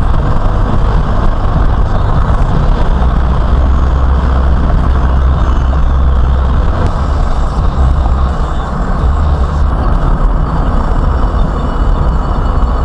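Steady road and engine noise inside a moving car, a constant low rumble with tyre hiss, picked up by a windshield-mounted dash camera's microphone.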